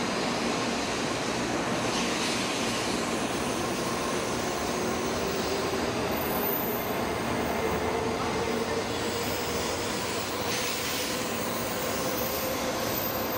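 Shinkansen train rolling slowly along the platform, a steady rumble of passing cars with a faint motor whine that slowly rises in pitch as it gathers speed.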